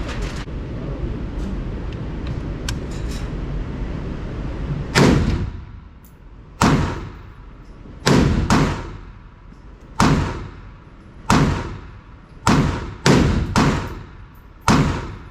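A steady rushing noise for about five seconds, then eleven gunshots fired at an uneven pace, several in quick succession near the end, each followed by a fading echo.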